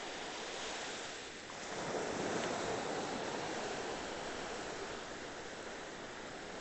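Sea surf breaking and washing up on a sandy beach, with a wave surging in about two seconds in and slowly fading away.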